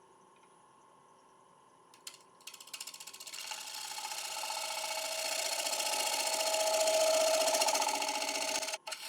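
Gouge cutting into the inside of a damson wood bowl spinning on a lathe, with a fast, even ticking as the tool works the wood. It starts a couple of seconds in, grows steadily louder, and breaks off briefly near the end.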